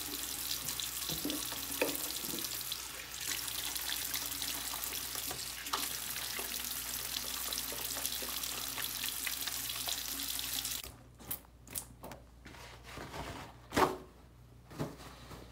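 Bathroom faucet running into a sink while hands are washed with soap. The water shuts off about two-thirds of the way through, followed by a few short rustles and taps of a paper towel as the hands are dried.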